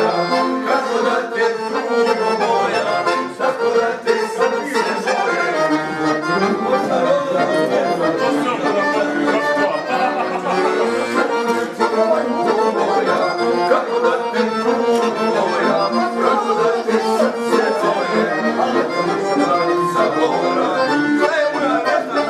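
Piano accordion played live, a traditional tune running on without a break.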